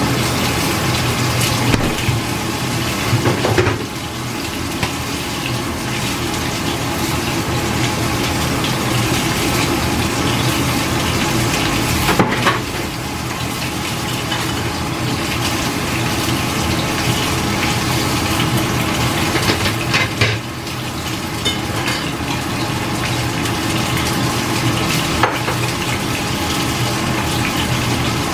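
A pot cooking on the stove, heard as a steady hiss of steam or boiling with a low hum underneath. Four light knocks or clinks are spread through it.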